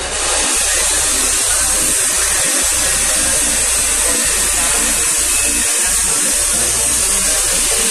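Electric motor of a beach-cleaning machine driving its rake conveyor, running with a loud, steady whirring hiss over a low hum.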